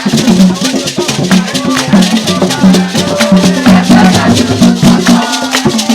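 Lively percussion music driven by a fast shaker rattle over a repeating low bass pattern.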